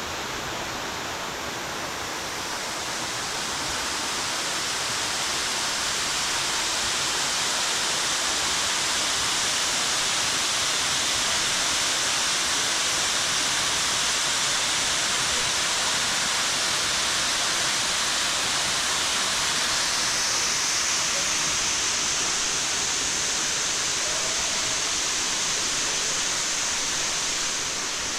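Lower South Falls waterfall: a steady, even rush of falling and splashing water that grows a little louder a few seconds in.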